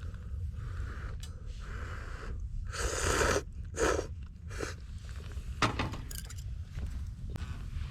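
A person slurping hot ramen noodles: one long slurp about three seconds in, then two shorter ones, over a steady low rumble.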